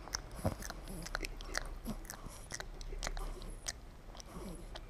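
American Staffordshire Terrier puppy smacking its lips and working its tongue in its sleep: irregular wet mouth clicks, as if chewing something while dreaming.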